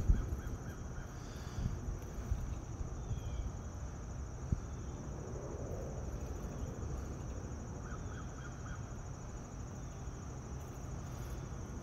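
Outdoor ambience: wind rumbling on the microphone over a steady high-pitched hum, with a few short bird calls, including a quick run of them about eight seconds in.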